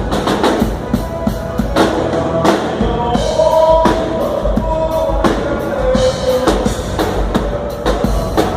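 Live dance-band music: a drum kit keeps a steady beat with bass drum and snare under held melody notes.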